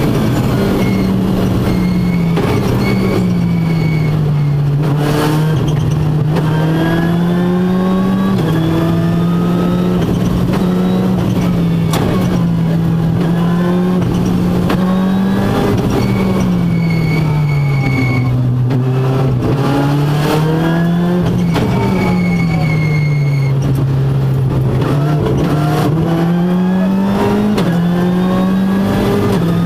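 Ford Fiesta R5 rally car's turbocharged four-cylinder engine heard from inside the cabin at stage pace. The revs rise and fall repeatedly with quick gear changes and braking dips, and a few sharp cracks come through.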